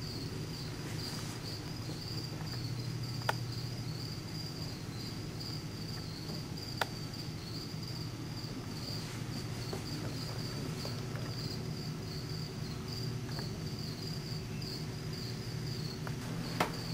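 A cricket chirping steadily at a high pitch over a low steady hum, with a few sharp clicks along the way.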